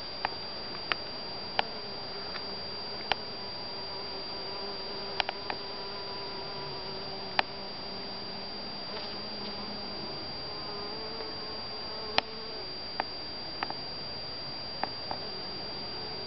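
Honeybee buzzing around flowers, a wavering hum that rises in pitch about three quarters of the way through. Under it runs a steady high whine, and sharp clicks come every second or two.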